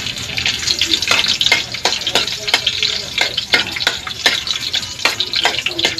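Garlic sizzling in a little hot oil in a wok, the sizzle starting right as it goes in. A ladle scrapes and knocks against the pan about two to three times a second as it is stirred.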